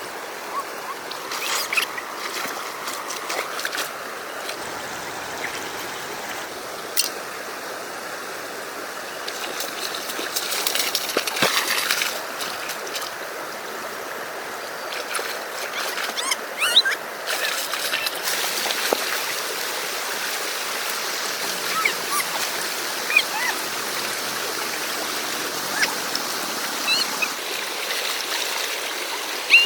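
Steady rush of river water, with occasional splashes and a few short high chirps in the second half.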